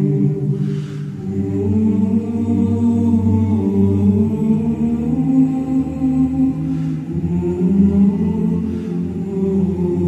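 Background music of layered voices singing low, long-held choral chords that shift every few seconds.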